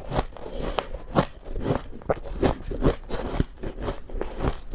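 Close-miked chewing of a mouthful of powdery freezer frost: rapid, irregular crunching, several crunches a second.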